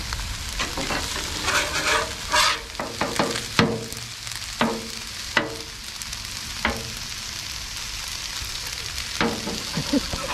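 Rice and vegetables sizzling on a Blackstone flat-top griddle while a metal bench scraper scrapes and clacks across the steel cooktop, spreading the rice out. The scraping comes in a run of strokes between about one and seven seconds in, and again near the end, over a steady sizzle.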